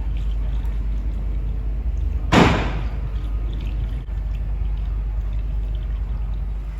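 A single loud slam or thud about two and a half seconds in, ringing briefly, over a steady low rumble.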